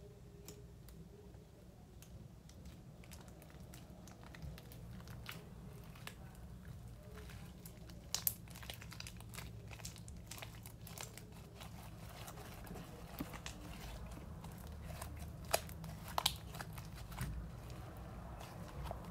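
Homemade slime being mixed and squished by hand, giving irregular wet clicks and pops as air is pressed out, with a few louder pops about eight seconds in and again later.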